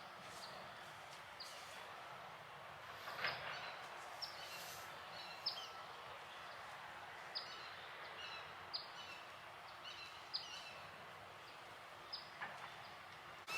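Songbird calls: short, high, downward-sliding chirps repeated at irregular intervals over a steady background hiss, with one brief louder noise about three seconds in.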